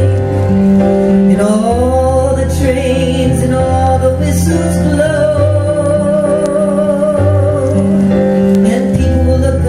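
Woman singing long held notes, one sliding up in pitch about a second and a half in, over electric keyboard chords.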